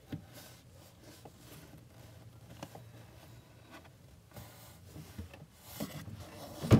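A hand rummaging in a wooden wardrobe among folded clothes: soft rubbing of cloth and scattered small knocks on wood. It grows busier in the last couple of seconds and ends in one louder knock.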